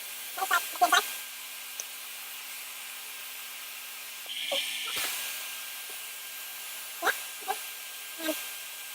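Hoover vacuum cleaner running steadily with its nozzle held against a beard, sucking at the hair. Several short, high, squeal-like sounds break in at intervals, a couple near the start, two around the middle and three near the end.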